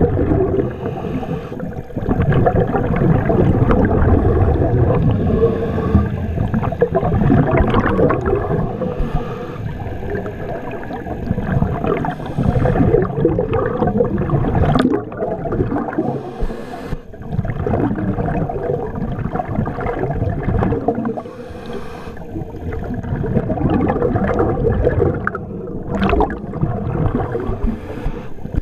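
Underwater sound of a diver breathing, with exhaled bubbles gurgling in a rush that swells and fades every few seconds.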